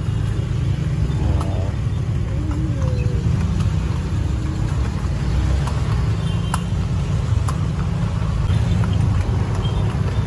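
Steady low rumble of road traffic (cars, minibuses and motorbikes) with a few faint clicks scattered through it.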